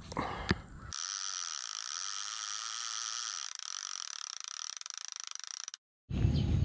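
Channel intro title sound effect: a high electronic ringing shimmer with no bass. It starts about a second in, flickers toward the end, and cuts off abruptly, after which outdoor field sound returns.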